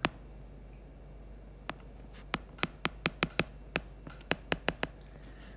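A stylus tip clicking and tapping on a drawing tablet while a word is handwritten: a dozen or so short, sharp clicks over about three seconds, starting a couple of seconds in, over a faint steady low hum.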